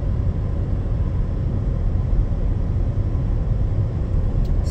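Steady low rumble of tyre, road and engine noise heard inside a car's cabin as it moves slowly in heavy expressway traffic.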